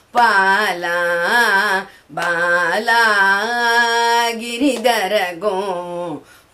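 A woman singing a devotional bhajan solo, without accompaniment, in long ornamented phrases. She breaks for a breath about two seconds in, then holds one long steady note before the phrase winds down near the end.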